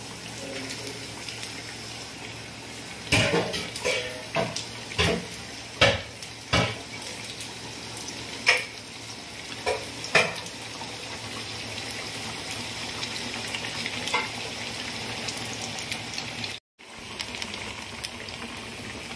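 Aloo tikkis coated in crushed Maggi noodles deep-frying in hot oil in a pan: a steady sizzle throughout. A run of sharp clicks and knocks comes between about three and ten seconds in, as more pieces go into the oil. The sound cuts out briefly near the end.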